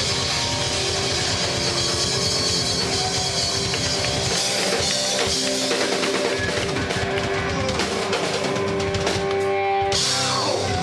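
Rock band playing: drum kit and electric guitar, with held notes ringing over the drums.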